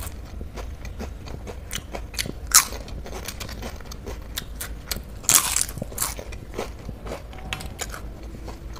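Close-miked crunching of a crisp papad being bitten and chewed, a run of sharp crackling snaps. The loudest crunches come about two and a half seconds in and again around five and a half seconds in.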